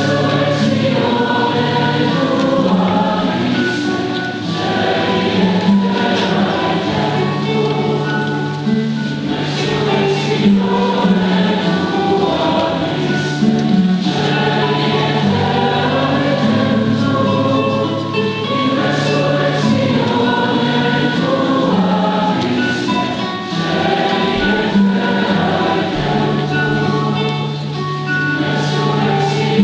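Congregation and choir singing a slow, repetitive Taizé chant in several parts, with long held low notes underneath.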